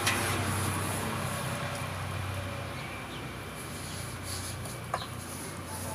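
A motor vehicle's engine hum fading away over the first few seconds, over a steady high-pitched hiss, with a light knock at the start and another about five seconds in.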